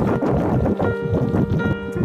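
Wind buffeting the microphone of a moving camera, a loud low rumble, with background music of held notes coming in under it about a second in.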